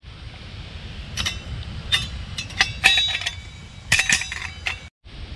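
Stainless-steel twig stove being handled over the fire pit: a string of sharp metallic clinks, each with a brief ring.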